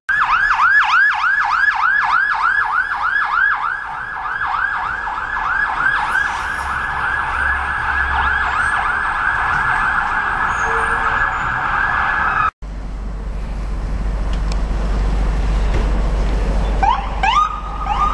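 Emergency vehicle siren in fast yelp mode, rapid rising-and-falling sweeps about three to four a second, over low traffic rumble. After a brief cut, a siren winds up again near the end and holds a steady tone.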